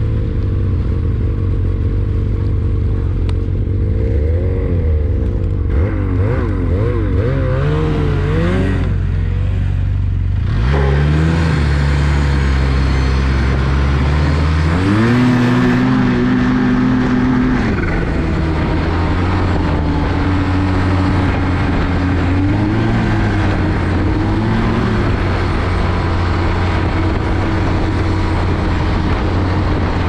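Snowmobile engine idling with a pitch that wavers, then revving up about ten seconds in and again near fifteen seconds as the sled pulls away. It then runs steadily at trail speed, with a few small rises and falls in pitch.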